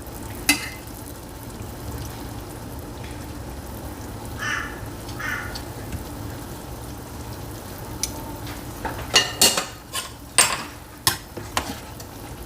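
Kitchen cooking sounds: a steady low hum from the pot of chicken soup on the stove, two short raspy noises about four and five seconds in, and a run of sharp clinks and knocks near the end as utensils and dishes are handled to lift out the boiled chicken.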